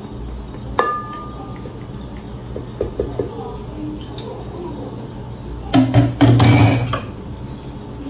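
Kitchen utensil sounds: about a second in, a spoon or spatula strikes a bowl or glass blender jar once with a short ringing clink. Around six seconds in comes a louder scraping clatter lasting about a second, as a spatula works against a bowl while ingredients are added to the blender.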